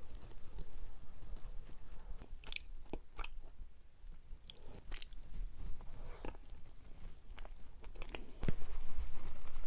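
Close-miked mouth sounds of biting and chewing a soft mugwort rice cake shaped like a loofah: scattered sticky clicks and smacks. A louder low hum comes up near the end.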